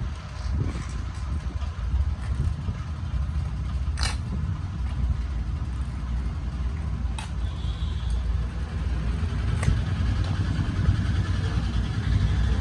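Steady low rumble of a vehicle engine running nearby, with three short sharp clicks spread through.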